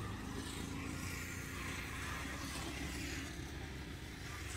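Steady low background rumble with a faint hiss above it.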